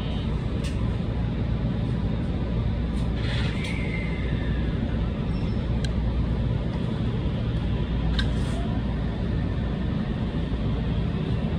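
Cab interior of a JR Central 313 series electric train rolling slowly: a steady low rumble with a few sharp clicks scattered through it and a brief falling squeal about three and a half seconds in.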